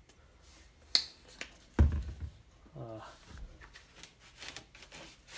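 Painting supplies being handled for blue paint: a sharp click about a second in, a loud dull thump just before two seconds, then lighter clicks and rustling.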